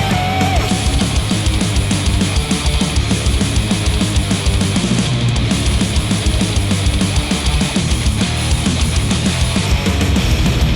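Heavy metal-style rock music with a fast, steady beat, played back through a HIFIMAN planar-magnetic headphone and picked up by microphones.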